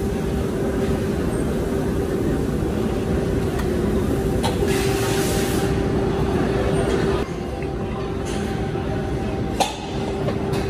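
Workshop machinery running with a steady hum and one constant tone, from the electric motor that spins the fan covers while their rims are painted. The noise drops a little about seven seconds in, and a single sharp knock comes near the end.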